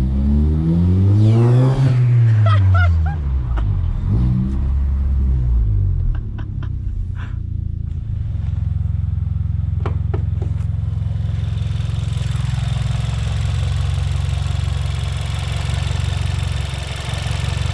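Turbocharged VW Golf engine revving up and dropping back over the first few seconds, then running at a steady low drone, with a few short clicks in between. No turbo flutter comes through: the blow-off valve taped over with electrical tape for a homemade flutter does nothing.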